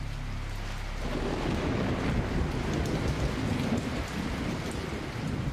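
A low, crackling rumble, thunder-like, swells about a second in and carries on. It is a dramatic sound effect. A held low music note fades out at the start.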